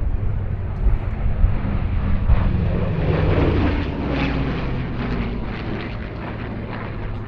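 Piston-engined Second World War fighters making a low pass with propellers and engines running. The sound swells to a peak a few seconds in, drops slightly in pitch as they go by, then eases off.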